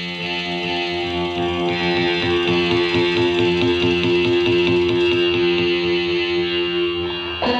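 Background music built on a held, effects-laden guitar chord that changes abruptly near the end.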